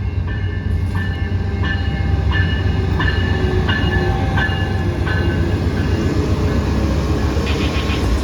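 Train running with a heavy low rumble, and a bell-like ding repeating about every two-thirds of a second.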